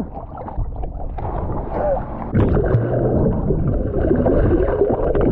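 Water rushing and bubbling around a camera held underwater while people swim, with short bubbling chirps through it.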